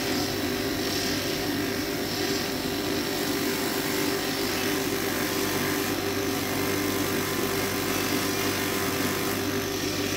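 Electric 150 mm bench grinder running steadily with a cloth polishing buff spinning on an extended spindle: a constant motor hum with an even whirring hiss.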